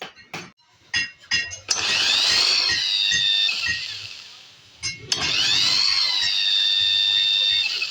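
A power tool run twice, each time for about two seconds: a whirr that climbs in pitch as it spins up and then holds steady before stopping, with a few clicks before the first run.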